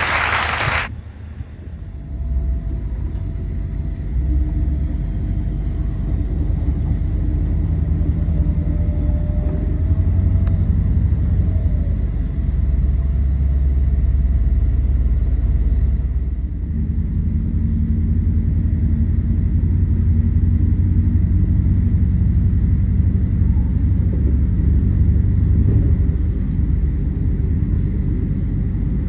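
Steady low rumble of a moving vehicle, with faint whining tones above it. It starts abruptly about a second in, cutting off a louder, fuller sound.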